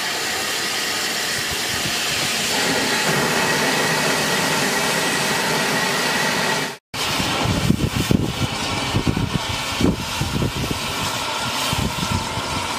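Steam locomotives moving slowly, with a steady hiss of steam from open cylinder drain cocks. About seven seconds in the sound cuts off sharply, and a different steam tank engine follows with uneven low thumps under a continuing hiss.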